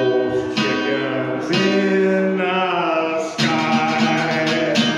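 A man singing over strummed chords on an archtop hollow-body guitar, with several sung notes held and wavering, and strums falling at uneven intervals through it.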